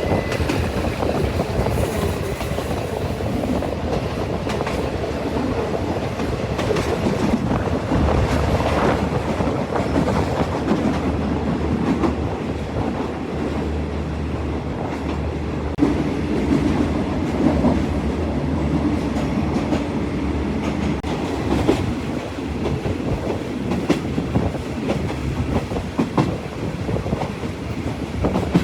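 Thai railway train running along the track: a steady rumble with scattered clicks of the wheels over the rail joints.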